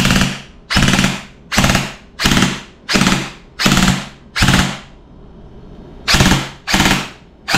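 Lancer Tactical LT-34 compact M4 airsoft electric gun (AEG) firing on full auto, testing the full-auto mode in about ten short bursts a little under a second apart, each a fast rattle of shots from the motor-driven gearbox. There is a pause of about a second before the last three bursts.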